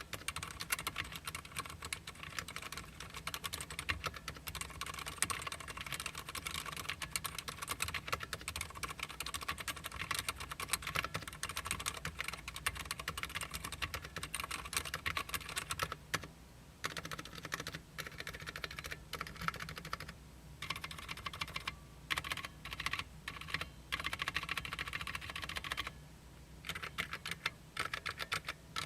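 Cherry MX Board 3.0S TKL RGB mechanical keyboard with Cherry MX Silent Red switches being typed on quickly and continuously. There are a few short breaks in the keystrokes past the middle.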